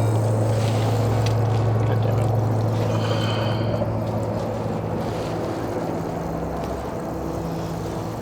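A steady low hum under an even rushing noise.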